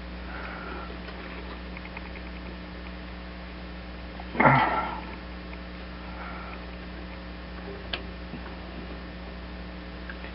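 Steady low hum, with one short, loud breath from a person about four and a half seconds in, a few faint soft scuffs, and a small click near eight seconds.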